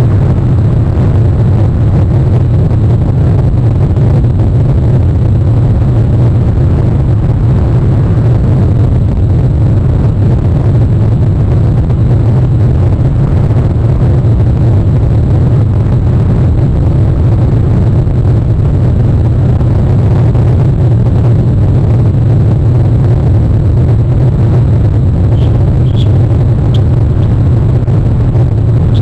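Steady, loud, low rumbling noise that barely changes in level. A few brief, faint high chirps come about three seconds before the end and again right at the end.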